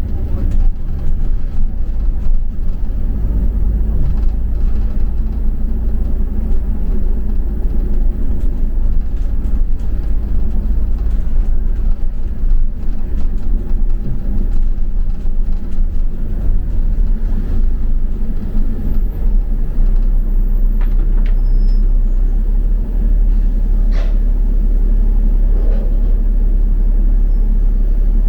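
Steady low engine and road rumble heard from inside a double-decker bus, with a few faint clicks and rattles.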